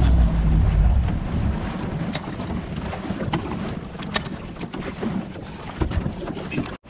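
Outboard motor driving a small boat across the water, with wind buffeting the microphone and water rushing past the hull. About a second and a half in the low engine drone drops away and the sound eases off as the boat slows, with a few light knocks after.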